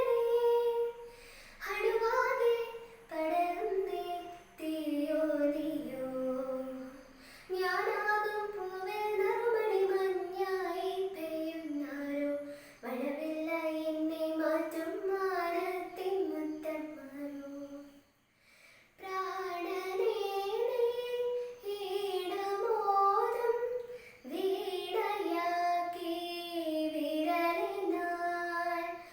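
A girl singing a Malayalam song solo and unaccompanied, in phrases of a few seconds with short breaths between them and a brief pause about eighteen seconds in.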